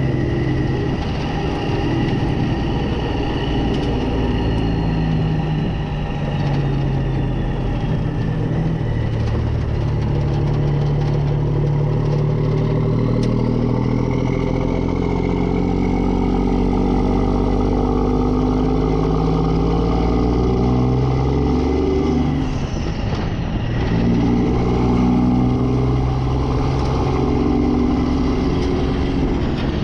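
Semi truck's diesel engine driving under way, its note rising and falling in steps through gear changes, with a brief drop in the engine sound about three quarters of the way through.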